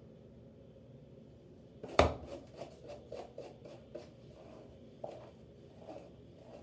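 Hairbrush drawn through long hair in a run of short brushing strokes, about two or three a second, starting about two seconds in with one sharp, loud knock.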